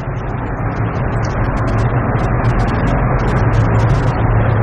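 A duster wiping a whiteboard in light scratchy strokes, heard over a louder steady low hum and rushing noise from a motor or engine.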